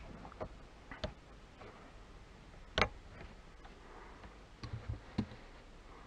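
Hard plastic fuse-box cover being handled and set aside: a few light clicks and taps, the sharpest about three seconds in, then a quick run of taps near the end.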